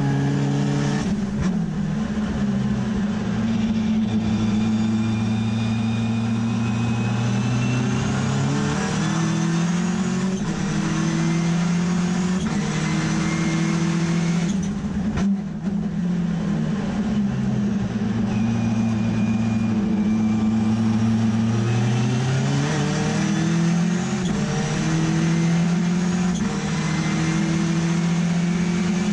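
Turbocharged Mazda RX3 race car's rotary engine under hard acceleration, heard from inside the cockpit: its note climbs in pitch and drops back at each gear change, with a brief lift off the throttle about halfway through.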